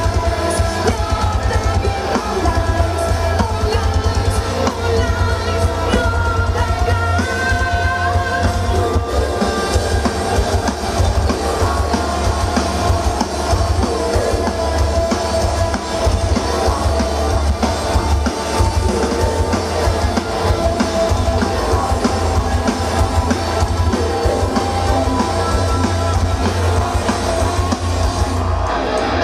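A metal band playing live: drum kit with a fast, heavy bass-drum pulse, guitars and a singing voice.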